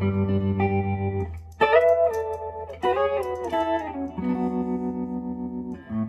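Electric guitar played through a hand-built Weber 6A20 tube amp, a clone of a Fender Deluxe Reverb: held chords and a few bent notes, with the amp's tremolo pulsing the volume quickly and evenly.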